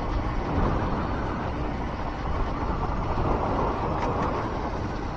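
Honda Fireblade motorcycle riding along a wet lane, its engine running under a steady hiss of wind and road noise.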